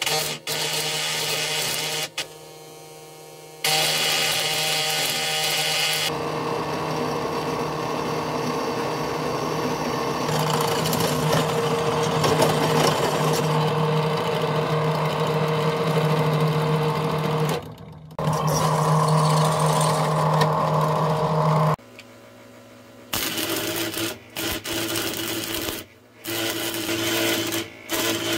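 Stick (arc) welding crackle in short bursts on steel bar, then a bench drill press running and boring through the steel for about a dozen seconds with a steady motor hum, then several short bursts of arc welding crackle again near the end.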